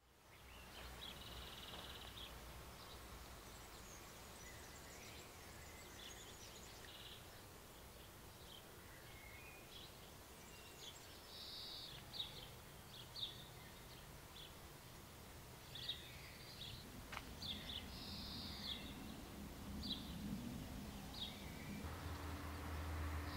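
Faint outdoor ambience with small birds singing in short chirps and trills at irregular intervals. A low steady hum comes in near the end.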